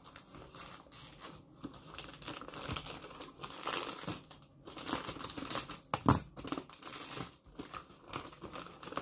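Grey plastic poly mailer bag crinkling and tearing as it is opened by hand, with one sharper, louder moment about six seconds in.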